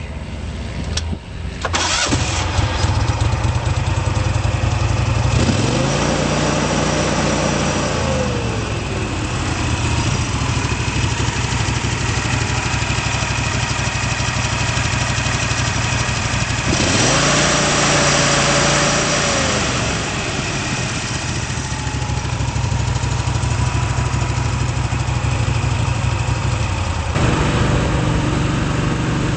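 Vermeer S400TX mini skid steer's engine cranking and catching about a second and a half in, then running steadily. It is revved up and back down twice, and revved up again near the end.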